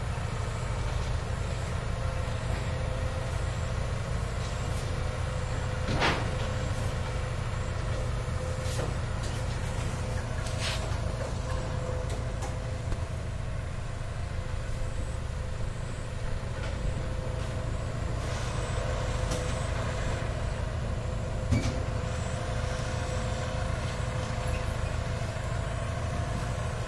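Heavy earthmoving machinery on a building site running steadily with a low engine rumble and a steady hum, broken by a few sharp knocks, the loudest about six seconds in.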